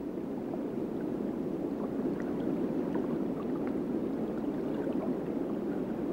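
Steady underwater water ambience: a low gurgling, bubbling wash with scattered faint clicks.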